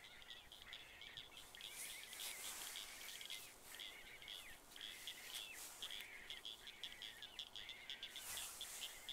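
Faint night chorus of small animals: short chirps repeating about twice a second, with two brief hiss-like swells about two and eight seconds in.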